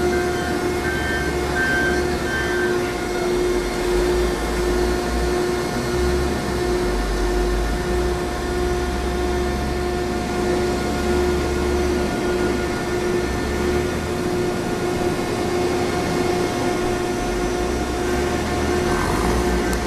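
Baling machine running: a steady machine hum with a constant whine, over a low rumble that swells and fades.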